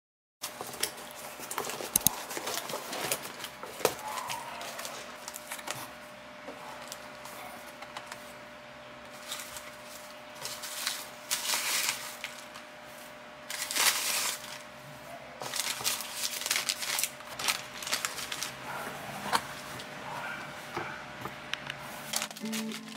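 Hands rummaging through shredded paper packing filler in a cardboard box and handling a paper-wrapped bowl: irregular rustling and crinkling with scattered sharper crackles.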